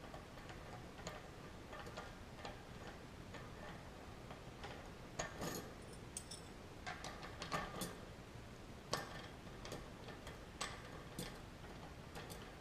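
Light metallic clicks and clinks at an uneven pace, sparse and faint at first, then louder and more frequent from about five seconds in: bicycle cassette cogs and spacers being handled and slid onto the rear hub's splined freehub.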